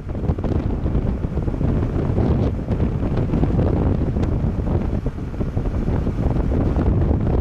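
Wind buffeting the microphone: a loud, gusty low rumble that rises and falls.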